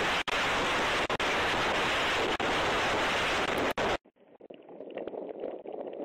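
Tornado winds blasting across a doorbell camera's microphone: a loud, rushing roar with brief dropouts that falls away suddenly about four seconds in, leaving fainter gusts that build again near the end.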